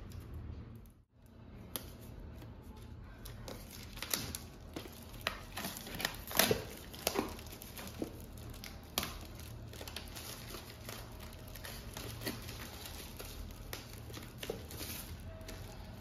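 Clear plastic wrapping crinkling and rustling as a picture frame is pulled out of it and handled, with scattered sharp crackles, the loudest about six seconds in.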